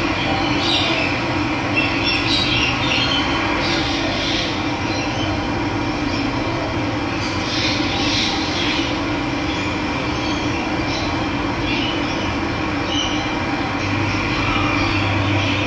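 Steady rush of running water, with bird calls breaking in now and then, loudest about two and eight seconds in.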